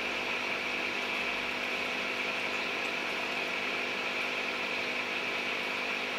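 Steady, unchanging hum and hiss of running aquarium equipment, with no breaks or separate events.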